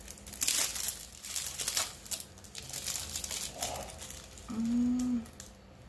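Thin clear plastic bag crinkling as hands open and handle it, in irregular rustles, with a short hummed voice sound about four and a half seconds in.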